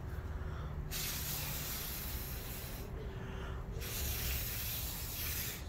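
Two long hisses, each about two seconds, with a short pause between them.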